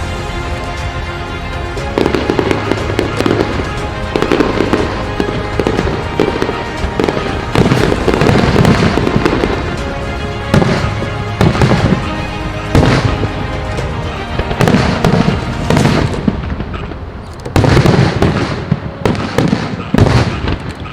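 Aerial fireworks shells bursting one after another in rapid, overlapping bangs and crackles, with a short lull about three-quarters of the way through. Music plays underneath.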